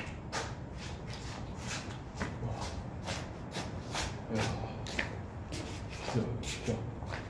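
A person moving about: irregular short scuffing and rustling sounds, a few a second.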